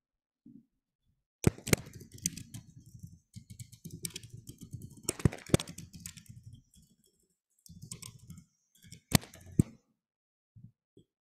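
Computer keyboard typing and clicking, irregular taps with a few sharper, louder clicks, in bursts over several seconds and then stopping.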